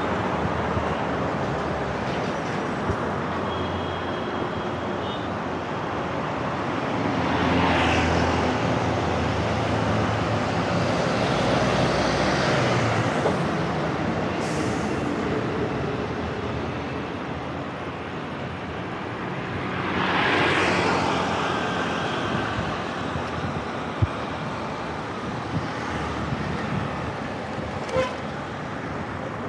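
Street traffic heard from a moving bicycle: a steady rush of road and wind noise, with vehicles passing and swelling louder about eight and twenty seconds in. A short vehicle horn toots a few seconds in.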